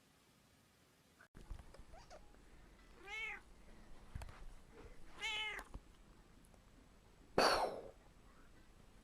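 A cat meowing twice, short calls about two seconds apart, each rising and falling in pitch. Near the end comes a brief rushing noise, the loudest sound.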